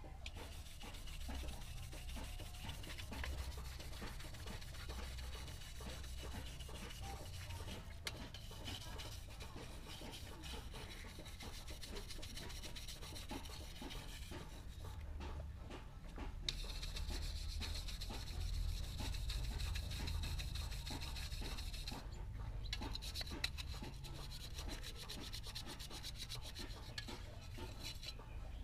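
Wire brush scrubbing a blackened brass letter, in quick scratchy strokes with two short pauses. The brushing rubs back the dark coating to give the brass an antique finish.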